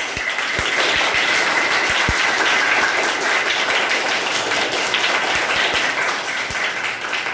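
A class of schoolchildren applauding together, many hands clapping steadily for about seven seconds.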